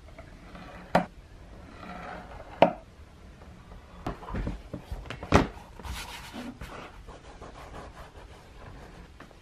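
Handling sounds at a leatherwork bench: leather being folded and pressed by hand, with quiet rubbing and a few sharp clicks and knocks. The loudest come about a second in, again at about two and a half seconds, and in a short cluster near the middle.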